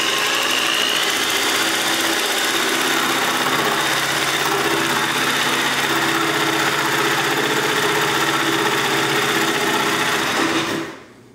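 DeWalt DW331K corded jigsaw at its lowest speed setting, running steadily as it cuts through the corner of a countertop; the saw stops near the end.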